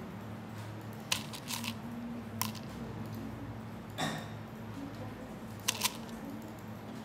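Scattered light clicks of small plastic shirt buttons knocking together as they are picked from a cup and set out on felt, the last two close together near the end, over a steady low hum.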